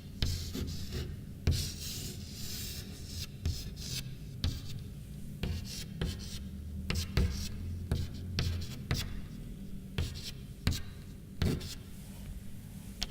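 Scratching and rubbing noises with many scattered sharp clicks, over a steady low hum.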